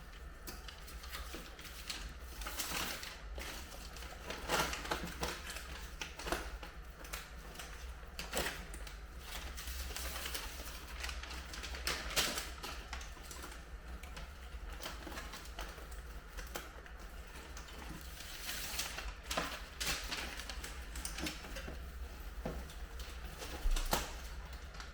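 Irregular crinkling, rustling and clicking of duct insulation and tape being handled and wrapped around an air-conditioning vent connection, over a low steady hum.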